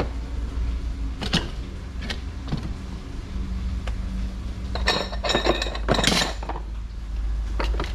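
Metal hardware being handled and set down: scattered clinks and knocks, with a quick cluster of them about five to six seconds in, over a steady low hum.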